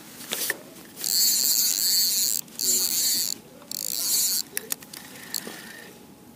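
Fishing reel buzzing in three bursts, the first about a second in, with a few short clicks around them, as a hooked carp is played on a float rod.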